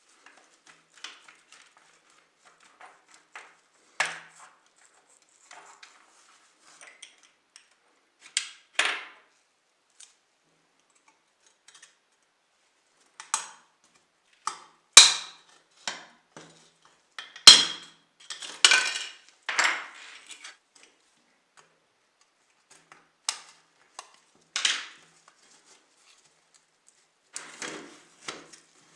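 Small metal parts and hand tools of a die-cast model car being worked on, clicking, tapping and clinking against each other and the work surface in scattered, irregular knocks with short scrapes. The loudest knocks come about halfway through.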